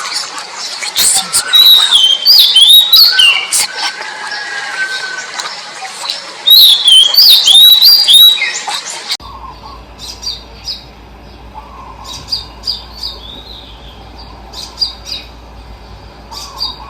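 Wild birds singing and calling: loud, varied whistled phrases mixed with harsh notes for about nine seconds, then a sudden change to a quieter recording of short, high chirps.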